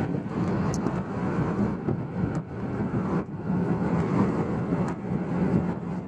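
2019 Chevrolet Camaro SS under way, with steady engine and road noise.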